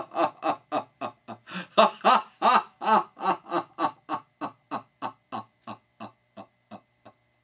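A person laughing in a long run of 'ha-ha-ha' bursts, about three a second, that slow and fade away until the laugh stops near the end.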